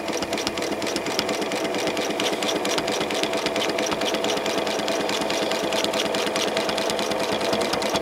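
Janome Memory Craft 6600 domestic sewing machine running steadily, its needle stitching fast through a quilt sandwich as the quilt is guided along a ruler. A rapid, even run of needle strokes over a steady motor hum, stopping abruptly near the end.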